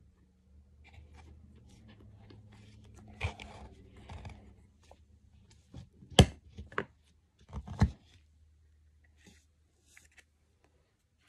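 Hands rummaging in a hard plastic toy shell: light rustling and scraping, then several sharp knocks of plastic. The loudest knocks come about six seconds in and again near eight seconds.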